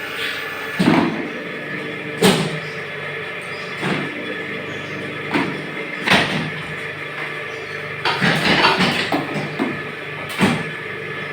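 Small plastic moulding machine for gallon caps running with a steady hum, broken by sharp knocks and clacks every second or two and a longer rattling stretch about eight seconds in.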